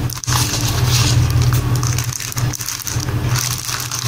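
Paper booklets in a plastic sleeve being handled and flipped through, with rustling and crinkling and a few short scrapes, over a steady low hum.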